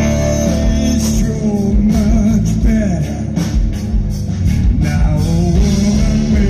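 Live blues-rock band playing: electric guitars with gliding, bent notes over bass guitar and drums, with regular cymbal and drum hits.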